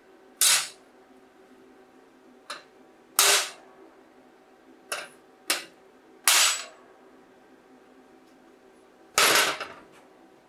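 Hammer striking a cut steel plate lying on a steel welding table: seven sharp metallic strikes at uneven intervals, four heavy and three lighter, each ringing briefly, the heaviest near the end.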